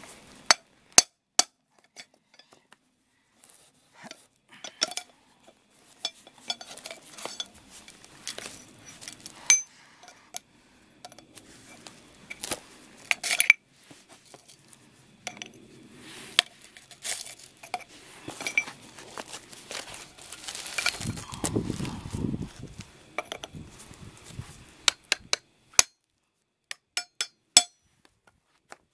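Hammer blows on a cold chisel driven against the rear wheel bearing of a Suzuki Palette 4WD axle shaft: sharp metallic clinks at uneven intervals, the shock knocking the bearing loose from the shaft. A duller, lower rumbling noise comes about three quarters of the way through.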